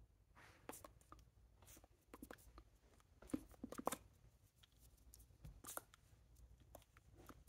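Faint, scattered taps and rustles of hands meeting each other and brushing a jacket while signing American Sign Language, loudest a little past the middle.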